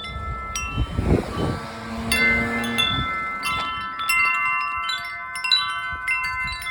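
Metal wind chimes ringing busily in strong storm wind, many overlapping struck tones, growing denser about two seconds in.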